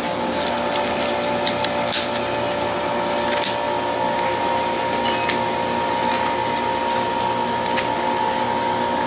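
Kitchen scissors snipping and scraping into the flesh of a hollowed pineapple half, heard as a cluster of short crisp clicks and crunches in the first few seconds and a few more later. Underneath runs a steady machine hum with two steady tones.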